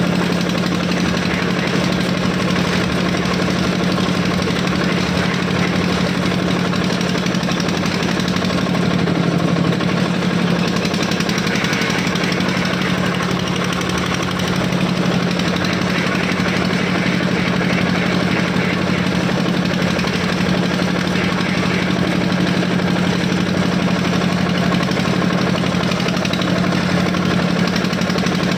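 Borewell drilling rig running steadily: a loud, constant engine hum under a dense mechanical clatter, with no change through the whole stretch.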